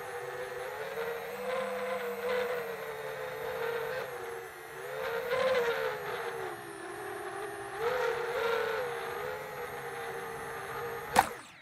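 Quadcopter's electric motors and propellers whining, recorded on board, the pitch rising and falling with throttle. Near the end a sharp crash impact as the quad hits the ground, and the motor whine cuts out.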